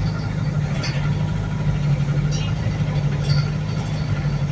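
The diesel engine of a Wright New Bus for London hybrid double-decker runs with a steady low drone, heard from inside the bus. A few faint high ticks sound over it.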